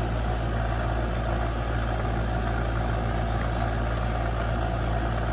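Steady low mechanical hum, like an idling engine or motor running nearby, with two faint clicks about three and a half seconds in.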